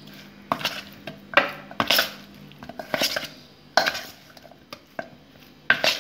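Cauliflower florets being mixed by hand in a thick masala batter in a stainless steel bowl: irregular wet strokes with knocks and clatter against the metal bowl, about once or twice a second.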